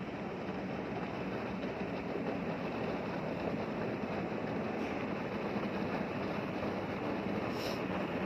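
Steady rumble of ship's engines and machinery with a constant low hum, among icebreaking vessels. A brief high-pitched click near the end.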